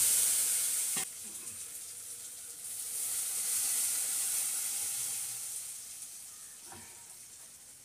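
Tadka of cumin, curry leaves and dried red chillies sizzling in hot oil in a kadai, cut short by a knock about a second in. A second sizzle then swells as cooked dal is poured into the hot tempering, and it slowly dies away.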